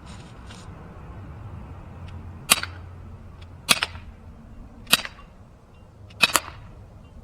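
Umarex Glock 19 CO2 BB pistol firing four shots about a second and a quarter apart, each a sharp pop, the last one followed at once by a second click. The CO2 cartridge is running low near the end of its charge.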